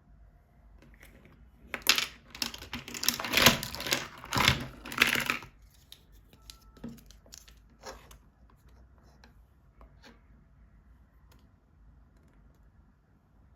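Plastic toys and packaging being handled: a dense run of crinkling and clattering for about four seconds, then a few scattered clicks and taps.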